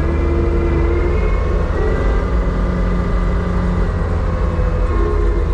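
Heavy machinery running steadily at a sugar beet piler: a constant deep engine rumble with a few held tones above it that drift slightly in pitch.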